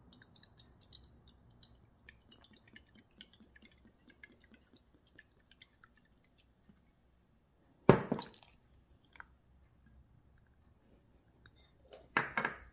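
Soy sauce trickling softly from a bottle into a plastic measuring cup. A sudden loud knock comes about eight seconds in, and a brief clattering splash near the end.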